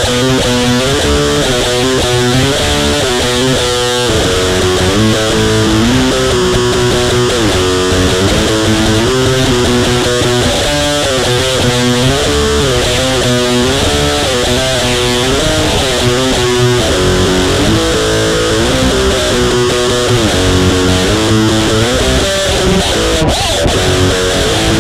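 Distorted electric guitar playing a repeating heavy metal riff.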